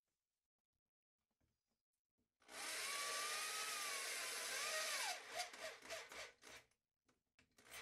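Corded electric drill driving a self-drilling truss screw through a plexiglass sheet into a crib rail: a steady run of about two and a half seconds starting a little over two seconds in, its motor whine wavering, then several short bursts as the trigger is pulsed, then a few faint clicks.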